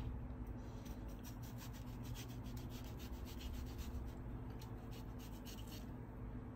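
Kitchen knife slicing the rind off a melon on a plastic cutting board: many short, irregular rasping strokes of the blade through rind and flesh, over a low steady hum.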